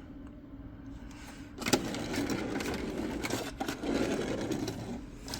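Handling noise from a die-cast toy car: a sharp click about a second and a half in, then about three seconds of steady scraping and rattling.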